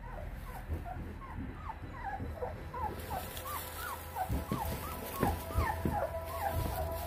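Eighteen-day-old Lycan Shepherd puppies whimpering and squeaking: many short, high cries that rise and fall, several a second, coming thicker after the first few seconds. A few thumps come in the middle.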